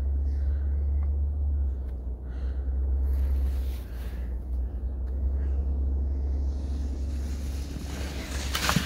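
Steady low wind rumble on the microphone. Near the end comes a louder hissing swish as a ski scooter slides down through the snow up close.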